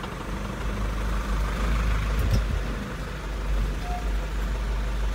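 Truck engine idling steadily while the truck waits at a stop line, heard from inside the cab.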